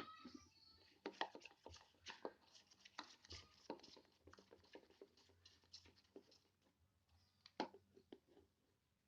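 Faint handling sounds of slime being worked by hand: a run of small clicks and sticky pops over the first few seconds, then a couple more near the end.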